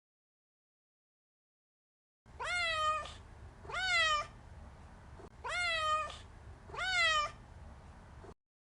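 Domestic cat meowing four times, starting about two seconds in; each meow lasts about half a second and rises, then falls, in pitch.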